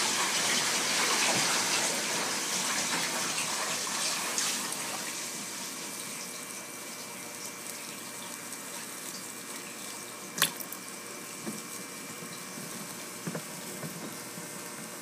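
Water running and bubbling steadily in a fish tank, loudest at first and easing off over the first several seconds. A single sharp click comes about ten seconds in.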